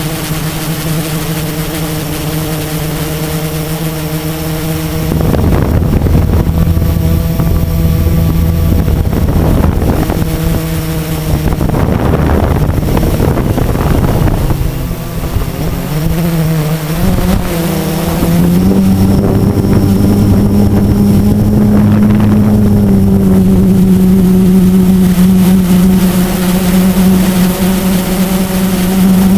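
Blade 350 QX quadcopter's brushless motors and propellers humming steadily in flight, recorded by its onboard camera, with wind rushing over the microphone. The hum gets louder about a fifth of the way in, and its pitch steps up a little past halfway and then holds.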